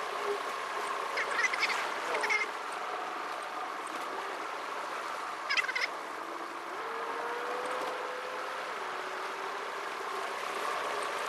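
Car engine and road noise inside the cabin, sped up fourfold into a steady high hum. The hum rises in pitch about seven seconds in and settles back a couple of seconds later. Short squeaky chirps come around one to two seconds in and again just before six seconds.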